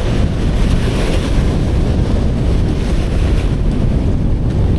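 Strong wind buffeting the microphone in a steady low rumble, over the rush of rough surf breaking on the beach.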